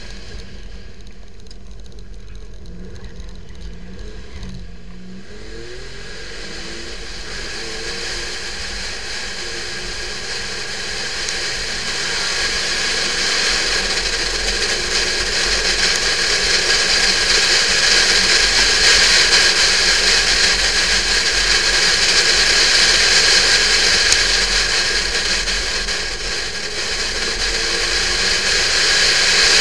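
Porsche 911 (996) flat-six engine pulling the car up through the revs, its pitch rising over the first few seconds, then a loud, steady rushing noise of the car at speed that builds up, eases briefly near the end and swells again.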